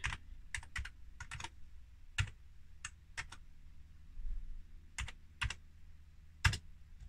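Keys on a Commodore Plus/4 keyboard being typed, about a dozen separate clicks at an uneven pace as a disk load command is entered. A louder final key press comes near the end.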